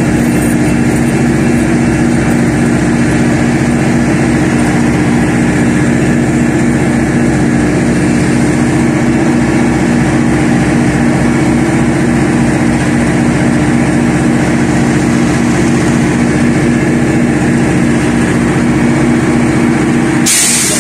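GO Transit MP40PH-3C locomotive's EMD 16-710 two-stroke V16 diesel running steadily at close range: a loud, constant engine drone with a low pulsing beat. A short sharp hiss near the end.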